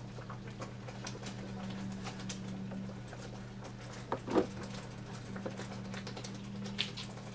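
Pork-chop gravy simmering in a skillet: a steady patter of small bubbles popping, over a steady low hum, with one louder knock about four seconds in.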